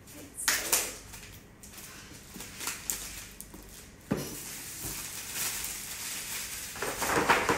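Clear plastic shrink-wrap being torn off a MacBook Air box and crumpled in the hands: crinkling and rustling in a few short bursts, then steadily, loudest near the end.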